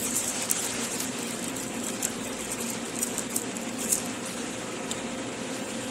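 Steady hum of a restaurant dining room's air handling, with a few faint light ticks and crinkles of the paper under a pizza as it is handled.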